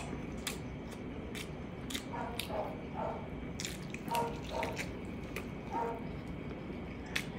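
Close-up wet chewing and lip smacking while eating braised pork ribs and rice by hand: irregular sharp smacks and squishy mouth sounds.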